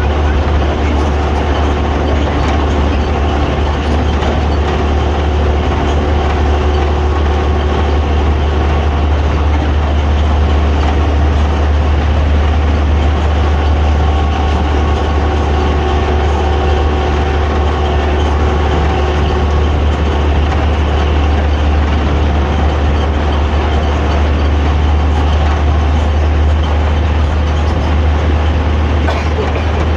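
Hino AK3-HR bus engine and exhaust running steadily while the bus is under way, heard from inside the cabin at the rear, with a deep, even drone.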